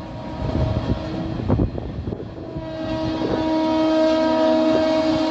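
Freight wagons rattle and clack over the rail joints. About two seconds in, the horn of the approaching electric locomotive of the Mahanagri Express starts in one long steady blast that grows louder.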